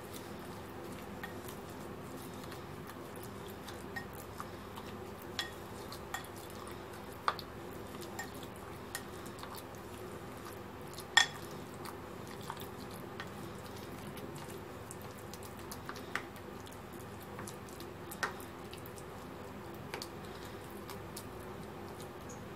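A spoon stirring wet raw chicken mince in a small glass bowl, with scattered clicks as it knocks the glass, the sharpest about eleven seconds in. A steady low hum runs underneath.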